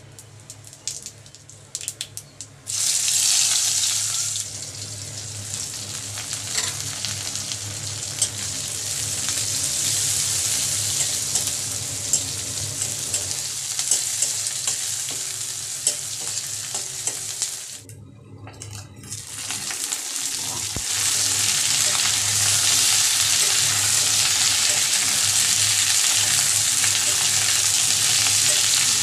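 Hot oil sizzling and spitting in an aluminium kadai as whole spices, sliced onion and green chillies, then chunks of vegetables are fried and stirred with a metal spatula. There are a few spoon clicks against the pan at first. The frying jumps up a little under three seconds in, dips briefly about two-thirds through, then comes back louder and steadier.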